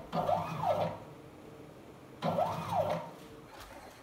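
Stepper motors of a homemade CNC router driving the gantry along its screw in short jogs. Each jog is a whine that rises and then falls in pitch as the motor speeds up and slows down. One comes at the start and another a little past two seconds in.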